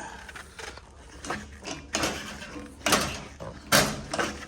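Several metallic clunks and rattles from an old 6-volt tractor's foot-pushed starter lever being worked, with no cranking at all: the starter does nothing, which the owner puts down to a dead battery. The last clunk, near the end, is the loudest.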